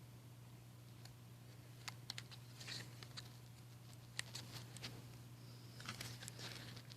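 Faint, scattered clicks and taps of small door-handle parts being handled as a tiny bracket is fitted into its hole, over a low steady hum.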